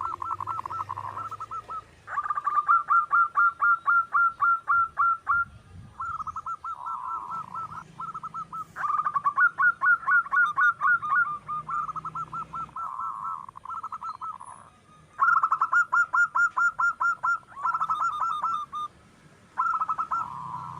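Zebra dove (perkutut) singing: repeated phrases of rapid staccato cooing notes, each run lasting a couple of seconds with short pauses between.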